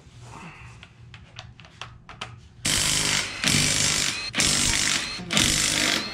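Cordless impact wrench loosening the lug nuts on a Subaru Forester's wheel so it can be taken off. After a few light clicks as the socket goes on, it hammers in four bursts of just under a second each, starting about two and a half seconds in.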